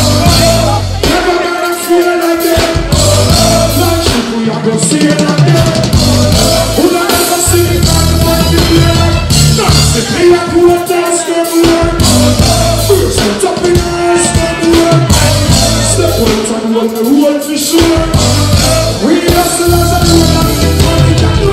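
Live reggae band playing, with a pulsing bass line and drums under a sustained held melody line.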